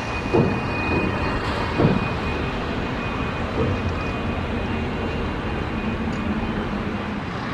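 Jet engines of a Qatar Airways Cargo Boeing 777 freighter running with a steady rumble as the aircraft rolls along the runway. A few brief dull thumps come about half a second, two seconds and three and a half seconds in.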